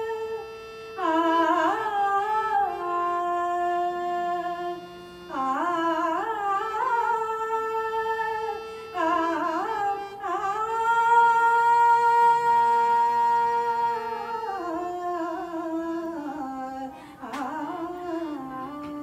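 A woman singing a Marathi devotional song in slow, gliding, ornamented phrases over a harmonium, holding one long note about ten seconds in.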